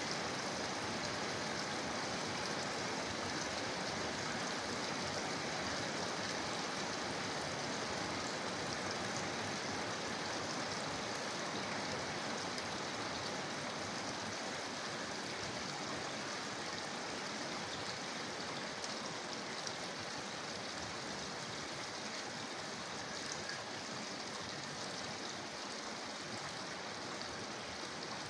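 Rainwater pouring steadily from a downpipe into a collection tank, a continuous rushing splash mixed with the hiss of falling rain.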